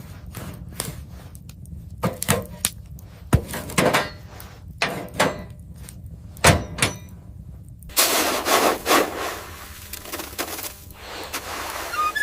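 A series of sharp knocks and clicks, irregularly spaced, turning into denser scraping and crunching from about eight seconds in.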